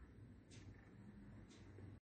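Near silence: faint room tone with a faint soft tick about once a second.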